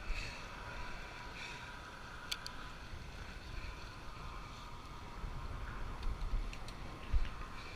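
Low wind rumble on the microphone with a faint steady tone, a few short clicks, and one low thump about seven seconds in.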